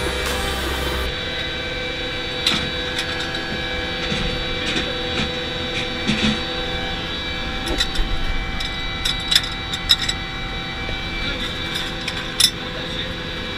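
Steady mechanical hum of machinery running inside the crew compartment of an M109 Paladin self-propelled howitzer, with scattered sharp metallic clicks and knocks from equipment being handled, the loudest near the end.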